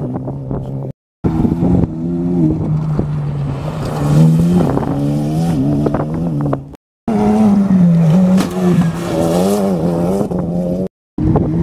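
Engines of off-road race trucks and buggies running hard as they accelerate away through the desert, their pitch rising and falling with the throttle and gear changes. The sound breaks off abruptly three times, at about one, seven and eleven seconds in, where clips are spliced together.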